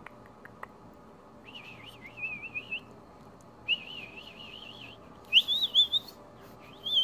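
Budgerigars warbling: short wavering, chirpy phrases with a few gaps, the loudest chirps about five seconds in.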